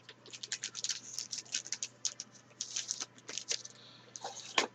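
Trading cards being handled: a rapid run of small flicks and rustles as cards slide over one another and are set down, with a sharper tap near the end.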